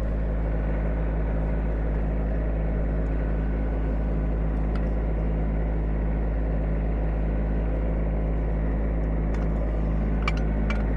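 Diesel engine of a Kubota B2601 compact tractor with a backhoe attachment, running steadily at an even speed. A few light clicks come near the end.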